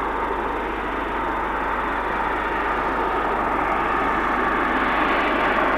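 Boeing 727's three Pratt & Whitney JT8D turbofans, a steady jet roar growing louder as the airliner flies low toward the listener.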